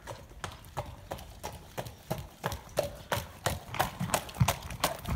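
A racehorse trotting, its hooves clip-clopping in an even rhythm of about four strikes a second, growing louder as it comes closer.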